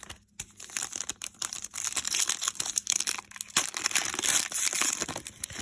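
Crinkling and crackling of a trading-card pack wrapper as it is torn open and crumpled by hand.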